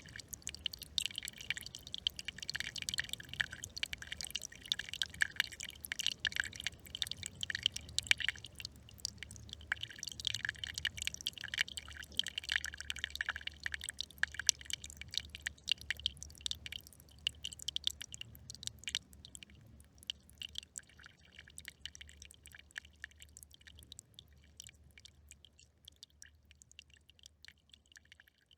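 A small brook trickling and babbling, a dense patter of little water splashes, dying away over the last several seconds.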